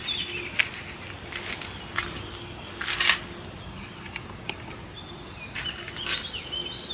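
Small birds chirping in short gliding notes near the start and again near the end, over a faint steady hum, with a few brief rustling noises, the loudest about three seconds in.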